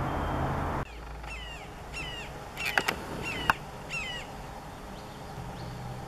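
Red-shouldered hawk calling a run of about five short, downslurred kee-ah notes, with a few sharp clicks among them. A steady rushing noise cuts off just before the calls begin.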